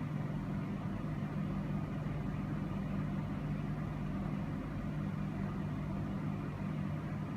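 A steady low hum over a constant hiss, with no distinct events.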